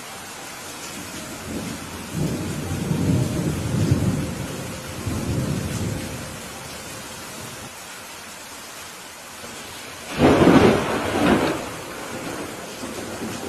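Steady rain with thunder: a low rolling rumble from about two seconds in, then a louder, sharper thunderclap about ten seconds in that rumbles on for a second or so.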